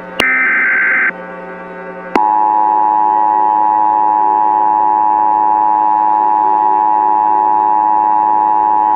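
An EAS SAME header burst: about a second of rapid two-tone data warble, starting a moment in. About two seconds in, the Emergency Alert System attention signal starts with a click: the steady dual tone of 853 and 960 Hz, held without a break. A steady low hum sits underneath.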